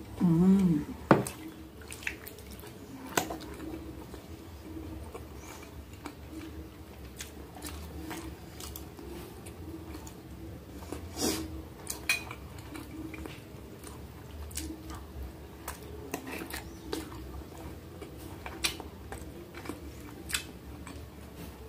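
Close-up eating sounds: chewing of ravioli in cream sauce, with scattered sharp clinks of a metal fork against a glass baking dish. A short hummed "mmm" comes about half a second in.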